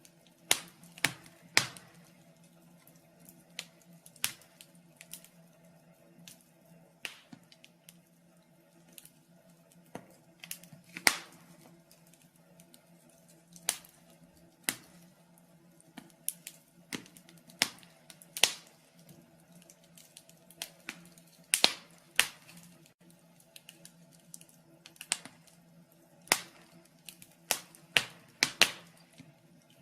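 Wood fire in a fireplace crackling: irregular sharp pops and snaps, sometimes several close together, over a faint steady hum.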